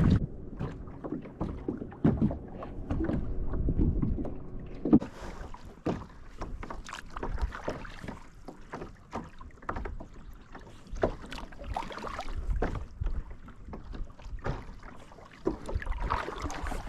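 Fishing kayak on the water: water washing against the hull, with irregular small knocks and splashes.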